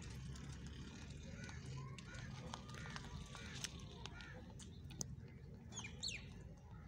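Rabbits nibbling dry feed sticks, with a few sharp small clicks, while birds call in the background: a few short chirps, then a quick high sweeping call near the end.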